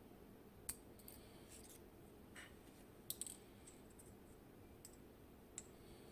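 Sparse, faint clicks and ticks of small metal lock parts and tools as the last pin is worked out of a Kaba Gemini Plus cylinder during disassembly, with a quick cluster of clicks about three seconds in.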